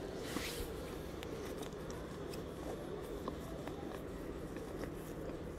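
Quiet steady background hiss with a short breathy rush right at the start and a few faint small clicks scattered through.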